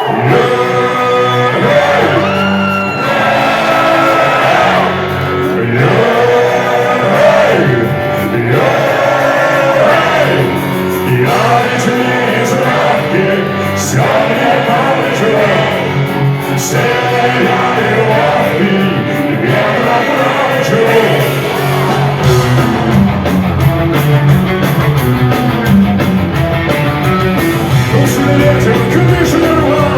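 Loud rock music with guitar and a melodic lead, with voices singing and shouting over it.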